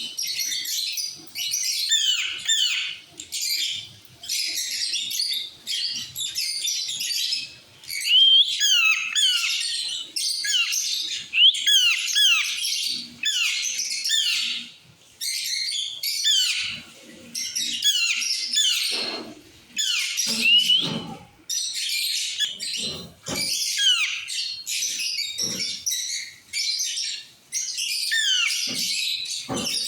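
Several parrots chattering and squawking together: a dense, overlapping run of high chirps with short falling squawks, broken by a few brief pauses.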